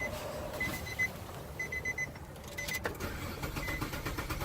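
Car's warning chime beeping about once a second. Near three seconds in there is a click, and the starter motor begins cranking the engine with fast even pulses. This is a crank-no-start car being cranked with its missing fuel pump relay refitted.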